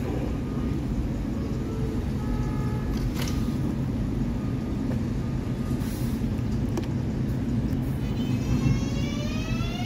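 R188 subway train standing at the platform with a steady low hum from its equipment. Near the end its traction motors start a rising whine of several tones climbing together as the train begins to pull away.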